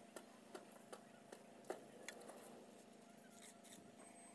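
Faint, regular taps, about two or three a second, that stop about two seconds in: a steel column form being tapped and rodded as concrete is packed into it.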